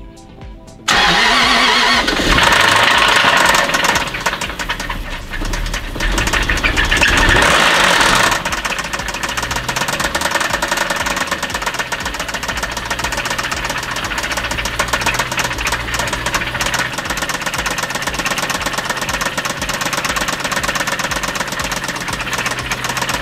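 The 2009 Jaguar XF's supercharged 4.2-litre V8 starts up about a second in and runs loud and uneven, then drops to a lower, steady but rough idle about eight seconds in. This is the misfiring, knocking engine that fresh iridium spark plugs have not cured; the owner suspects clogged fuel injectors.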